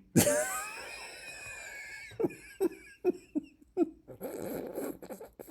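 A man making wordless effort noises: a drawn-out strained groan falling in pitch, then a string of short grunts about every half second, then breathy panting.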